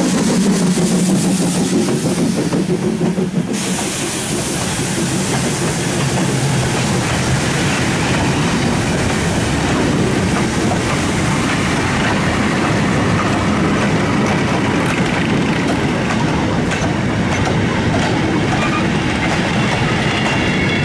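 A 0-6-0 tank steam locomotive passes close by hauling a goods train, with a hiss that drops away about three and a half seconds in. Then the four-wheeled vans and wagons roll past with a steady rattling clickety-clack of wheels over the rail joints.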